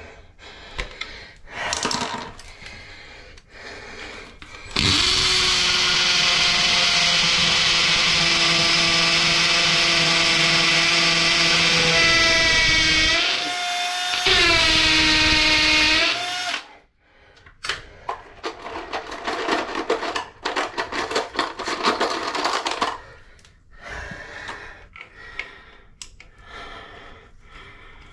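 A power tool's motor runs loud and steady for about eight seconds. Its pitch shifts as it slows, it cuts out for a moment, then it runs again for about two seconds. A string of knocks and clatter from working at the floor follows.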